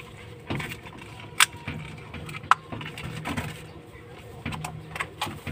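Hands handling AA batteries in their plastic-and-card blister pack and a plastic calculator: scattered clicks and knocks, with two sharp clicks about a second apart.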